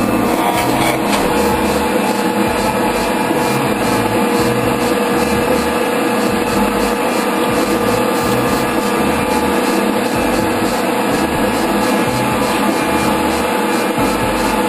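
24-inch metal shaper running with a steady mechanical drone and hum, its ram stroking to cut a keyway in a pulley's steel bore sleeve.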